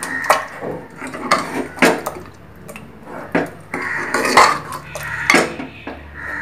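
Steel ladle stirring dal and dhokli dough rings in an aluminium pressure cooker, clinking and scraping against the pot's sides with irregular sharp knocks.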